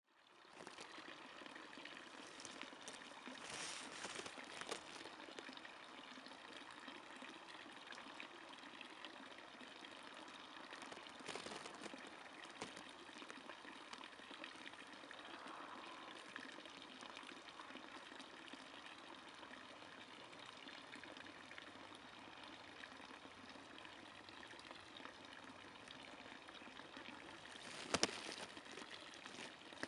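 Steady trickle of running water, with a few brief clicks, the loudest near the end.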